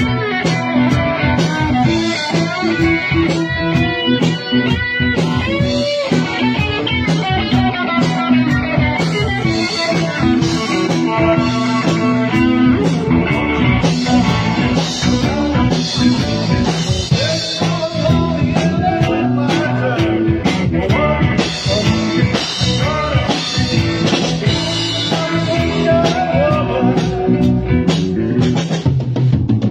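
A rock band playing together: electric guitar playing quick lead lines over electric bass and a drum kit.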